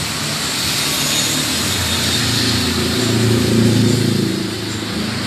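A motorcycle engine running, growing louder about two seconds in and easing off again near the end.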